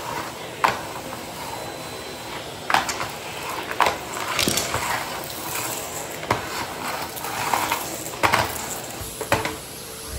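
Vacuum cleaner running steadily while its floor tool picks up grit and debris from the floor and rug edge. The debris rattles up the metal wand in about nine separate sharp clicks and crackles: a light crunch.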